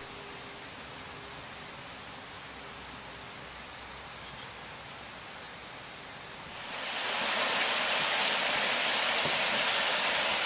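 Outdoor summer ambience: a steady high insect trill over a low hiss. About six and a half seconds in, a much louder steady rushing noise joins it.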